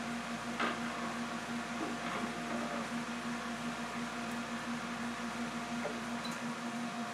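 Steady hum of a chocolate tempering machine running as it pours chocolate from its spout, with a few faint taps and scrapes of a spatula working chocolate over a mold.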